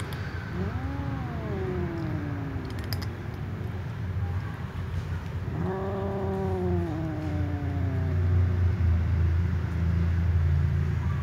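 Two cats meowing at each other: a long meow about half a second in that rises then falls, and another around six seconds in that slides downward. A low steady rumble runs underneath and grows louder in the second half.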